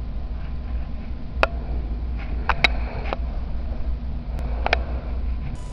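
A steady low hum or rumble, with a few sharp clicks scattered through it.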